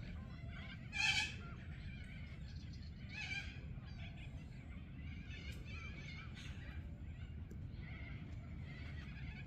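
Birds calling at a lake: a loud, harsh call about a second in and another about three seconds in, then fainter calls, over a steady low rumble of wind.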